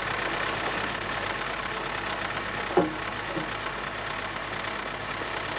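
Diesel engine of a railcar idling steadily at the platform, with one brief shout about three seconds in.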